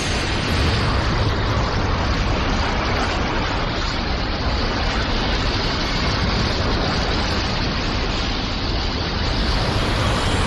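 Anime sound effect: a loud, steady rushing noise with a deep rumble underneath. It holds at an even level with no distinct hits or tones.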